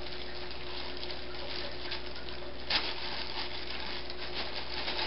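Clear plastic bag crinkling and rustling in the hands as it is worked open, with a sharper crackle about three seconds in.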